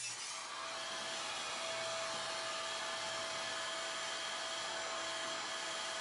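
Shop vacuum hooked to a miter saw's dust port running steadily: a constant rush of air with a faint steady whine.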